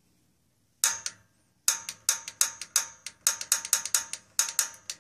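Piezo igniter starter button on a State gas water heater clicking: two clicks about a second in, then a quick run of about four clicks a second, sparking at the pilot burner to light the pilot.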